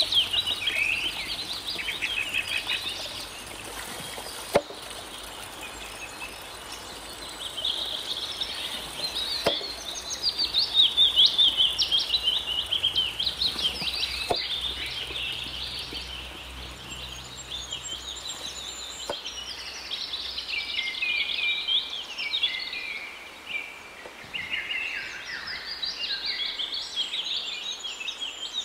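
Several birds chirping and singing in quick, overlapping calls, over the steady splash and trickle of water pouring from a bamboo pipe into a channel.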